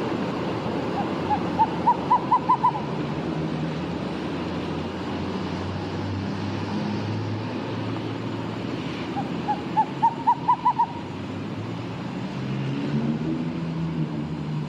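An owl calling: two runs of about eight short hoots each, the notes coming quicker and rising slightly in pitch and loudness, the second run about seven seconds after the first, over a steady low background hum.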